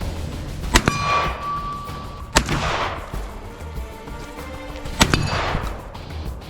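VR80 12-gauge semi-automatic shotgun firing three single shots at an uneven pace, spaced about one and a half to two and a half seconds apart. The first shot is followed by a metallic ring lasting about a second.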